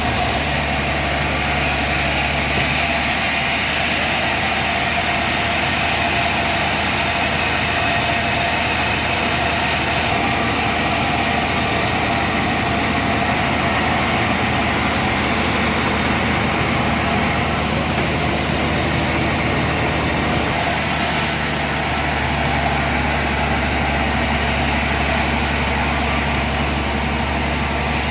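Sawmill saw and its engine running steadily. From about 3 to 21 seconds in, the low hum eases and a higher hiss comes up, then the low hum returns.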